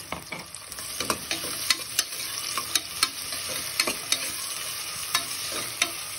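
Chopped onions sizzling in hot oil in a pressure cooker, stirred with a steel spoon that clinks and scrapes against the metal pot many times at irregular intervals.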